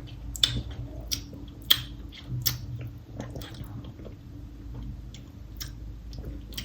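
Wet mouth clicks and lip smacks of someone tasting a cherry-flavoured drink: a handful of short, sharp ticks spread over a few seconds, over a quiet low hum.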